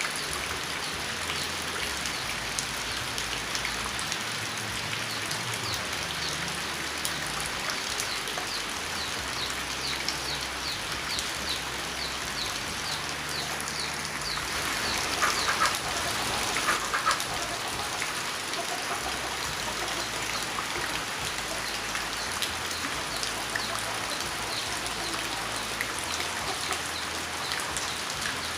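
Steady rain falling and pattering on surfaces. A run of short high chirps repeats about twice a second midway, followed by a brief louder call of a few notes around the middle.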